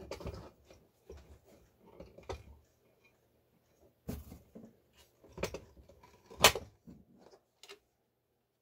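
The slide-on bed extension of a Singer 431G sewing machine being fitted back onto the free arm: a string of scrapes, clicks and knocks, the loudest knock about six and a half seconds in.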